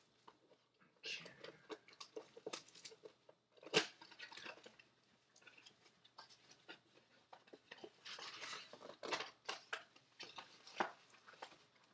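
A Bowman 2020 Mega Box of trading cards being torn open by hand: crinkling wrapping and tearing, rustling cardboard, with a sharp snap about four seconds in and a longer stretch of rustling near the end.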